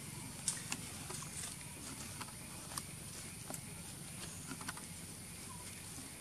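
Light scattered clicks and rustling as macaques shift about on dry leaf litter and pick food from a metal dish. Under them runs a steady faint high hiss, with the sharpest click about half a second in.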